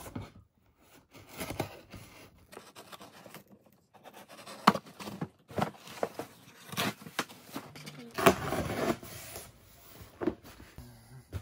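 A cardboard shipping box being handled and opened by hand: scraping and sliding of cardboard with several sharp taps and knocks, and a stretch of tearing a little past halfway.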